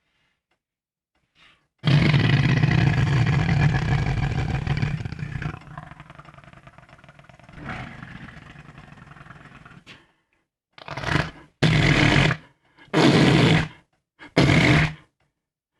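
A person imitating fart sounds with the mouth: one long blow starting about two seconds in that trails off more quietly, then four short blasts in quick succession near the end.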